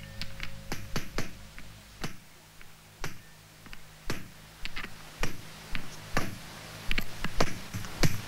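Irregular sharp electronic clicks and ticks from a Mixtur-Trautonium score, a few with a brief ringing tail, over a low steady hum. The hum fades out about two seconds in and comes back past the middle.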